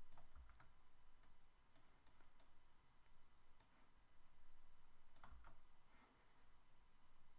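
Faint, irregular clicking of a computer keyboard and mouse as code is copied and pasted in an editor.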